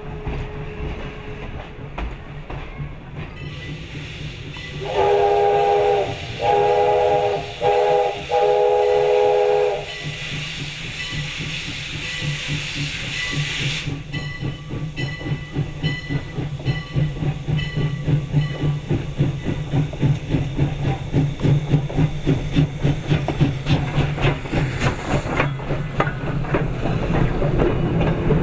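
0-6-0 steam switcher locomotive sounding its steam whistle in four blasts, long, long, short, long, the grade-crossing signal. A loud hiss of steam follows for a few seconds, then the exhaust beats chuff in a steady rhythm that grows louder as the engine pulls its cars.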